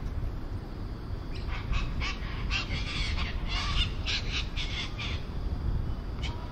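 Birds calling in a quick run of short calls, starting about a second in and stopping near the end, over a steady low rumble.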